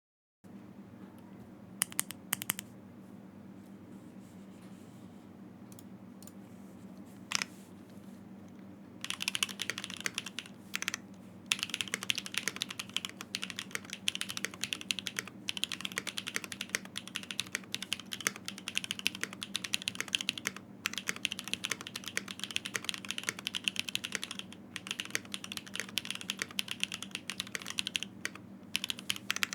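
Typing on a custom acrylic Stacked65 mechanical keyboard with Gateron Azure Dragon switches on an FR4 plate and GMK Godspeed keycaps. A few single keystrokes come first. From about nine seconds in there is a fast, continuous run of keystrokes with only brief pauses.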